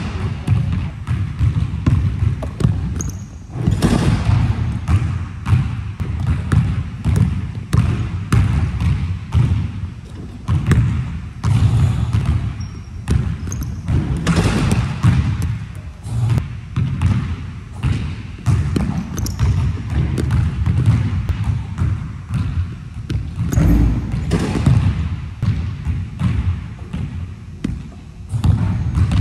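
Basketball bouncing again and again on a gym floor, echoing in the large hall, with a few louder thumps among the bounces.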